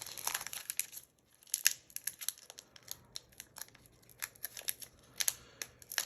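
Foil wrapper of a Pokémon card booster pack crinkling and tearing as it is opened, in irregular crackles.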